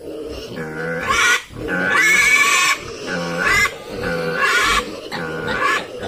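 Piglet squealing while held down and castrated: about five loud, shrill squeals, roughly one a second.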